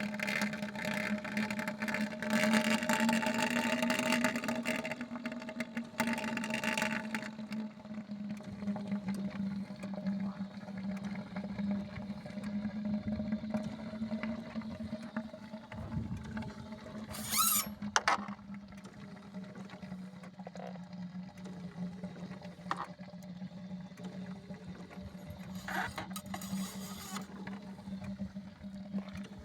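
Citroën C8 running with a steady hum, with a strange rushing noise from the car over the first seven seconds or so and a short high squeal about seventeen seconds in. The sound comes with coolant being sucked in, a fault the owner cannot explain.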